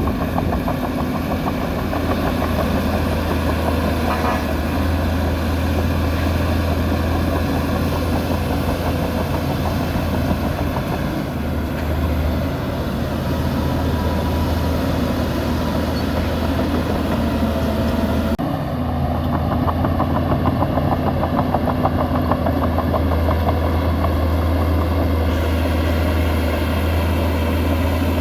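Heavy diesel engine of earthmoving machinery running steadily with a deep drone, its sound changing abruptly about two-thirds of the way through.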